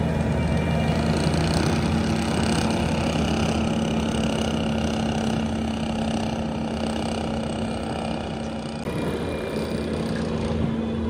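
Skid steer engine running steadily while driving its hydraulic ground-working attachment (a Coneteks 2.13 m grinder/soil conditioner), a constant machine hum with a slight change in tone about nine seconds in.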